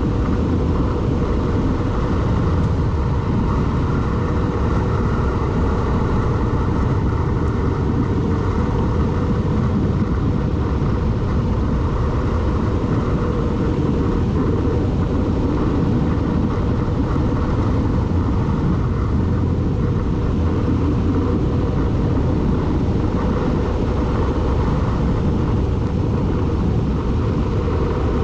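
A vehicle driving along a road, a steady mix of engine, tyre and wind noise with no clear revving or gear changes.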